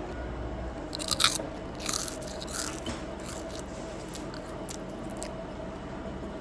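Crunchy food being bitten and chewed close to the microphone: a string of crisp crunches, the loudest about a second in, over a steady background hum.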